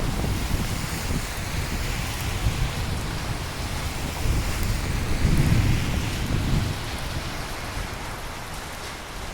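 Steady rainfall with a low rumble of thunder that swells about halfway through and then fades.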